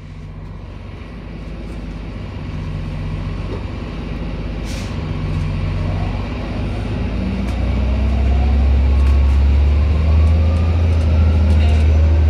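Hybrid city bus with a Cummins ISB diesel engine and BAE Systems HybriDrive, standing and running: a steady low engine hum that grows louder about eight seconds in, with a faint whine rising in pitch over the second half and a brief hiss about five seconds in.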